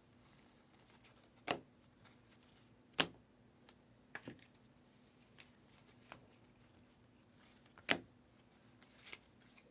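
Stack of Panini Donruss basketball trading cards being handled and flipped through one by one: soft sliding with a few sharp card snaps, the loudest about three seconds in.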